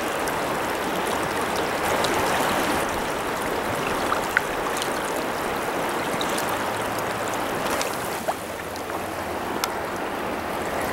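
Steady rush of river water flowing around a wading angler.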